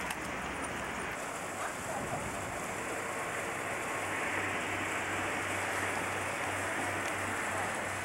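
Steady rushing outdoor background noise with no distinct events, joined by a faint low hum about halfway through.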